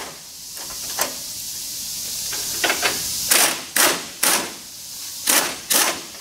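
Pneumatic impact wrench hammering in a series of short bursts, mostly in the second half, as it backs out an 18 mm bumper-mounting bolt.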